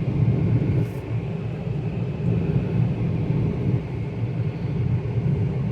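Hyundai Grand i10 diesel car running on a road test with the AC on, a steady low engine and road rumble with no belt or tensioner noise, after a new genuine tensioner and belt were fitted.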